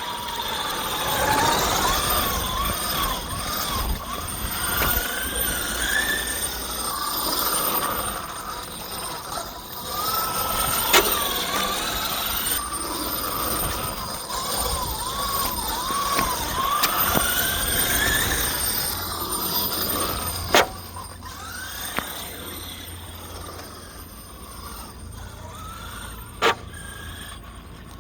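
A large-scale RC car's motor whining, its pitch rising and falling over and over as the throttle is worked, over low rumbling. Three sharp knocks come through, and the motor quiets in the last few seconds.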